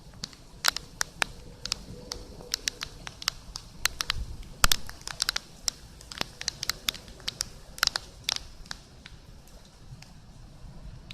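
Big raindrops tapping irregularly on a hard surface close by: scattered sharp taps, several a second, over a faint background of rain.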